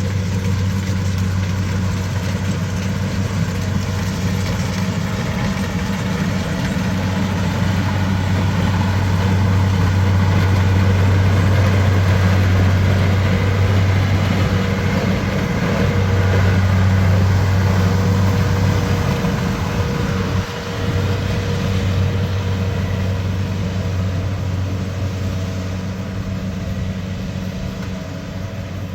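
Heavy machine's engine running steadily with a deep, even drone, getting a little louder in the middle and easing off toward the end, with a brief dip about twenty seconds in.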